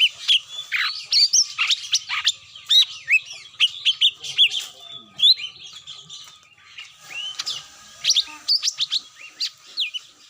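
Cucak mini bird lure call: many quick, overlapping chirps and short whistles that rise and fall, busy throughout and thinning out toward the end.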